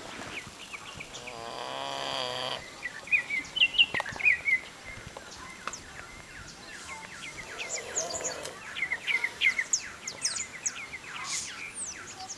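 Small birds chirping over and over in quick, sharp calls. A pig snores once, a rippling breath lasting just over a second, about a second and a half in.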